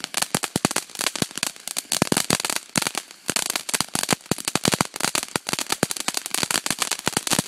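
Ground fountain firework spraying sparks: a hiss under a dense, irregular crackle of sharp pops, many a second, from its crackling stars.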